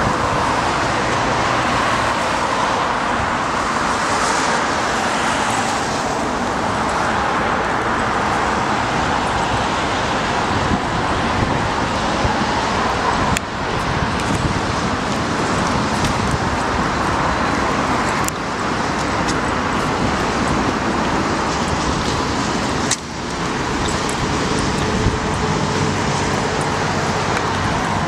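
Steady roar of road traffic, cars and buses passing on a wide multi-lane city street, with two brief dips in level, about halfway through and again about four-fifths of the way through.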